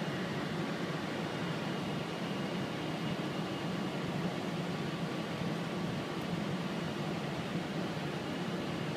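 Steady flight-deck noise of a Boeing 747-400 in descent: an even rushing of airflow with a low hum underneath and faint steady tones above it, unchanging throughout.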